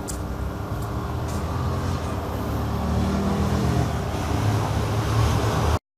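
Street traffic noise: a low vehicle engine rumble that grows louder, then cuts off suddenly near the end.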